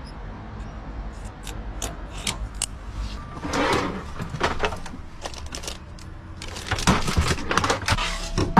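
Scattered clicks and rattling knocks of hands working with small hard objects, busier about three and a half seconds in and again from about six and a half seconds, over a low steady hum.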